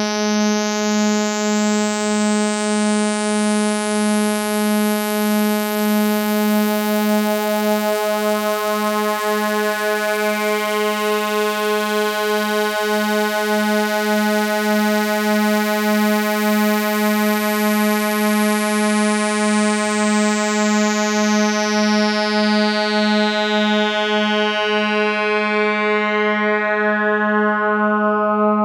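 Modular synthesizer drone held on one pitch near 210 Hz, the tuning meant as the synodic lunar frequency, slightly wobbly because one oscillator drifts off the tuning. Its upper overtones swell brighter over the first several seconds and dull again toward the end.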